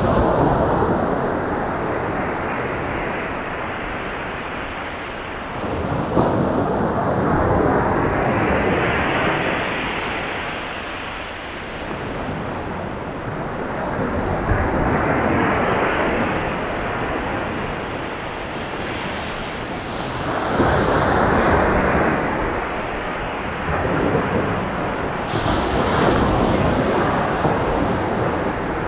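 Waves breaking on a sandy beach in a steady rhythm, each swell building and fading about every five to six seconds.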